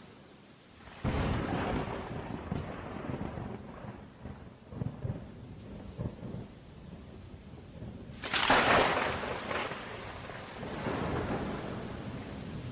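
Thunderstorm sound effect played in a theatre: rain with rolling thunder, a loud thunderclap about eight seconds in.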